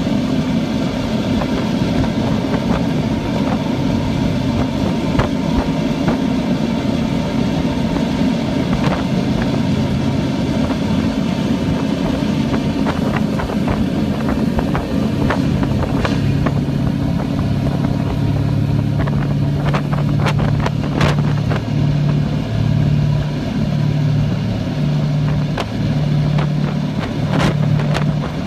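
A vessel's engine runs as a steady low drone. About halfway in, a pulsing low hum joins it, and a few sharp clicks come near the end.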